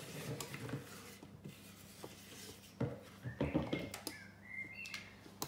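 A spoon scraping sticky honey-and-oat flapjack mixture out of a mixing bowl and into a paper-lined baking tin, with scattered light knocks and scrapes that cluster about three seconds in.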